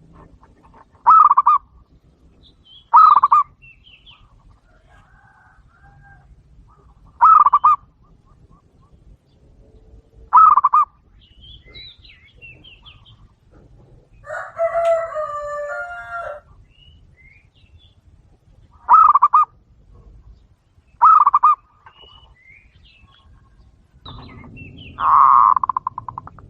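Short, loud, rolling bird calls repeated every few seconds, about seven in all. About halfway through comes a single rooster crow lasting about two seconds.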